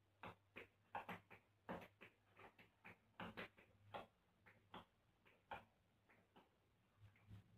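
Tap shoes striking a hard floor in hoofing rhythms: short, sharp taps in uneven clusters, about three to four a second.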